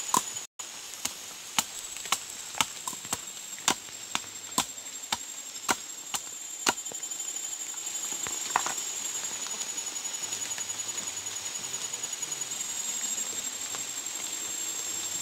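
A blade chopping into agarwood, one sharp strike about every half second for the first seven seconds, then a single strike near nine seconds.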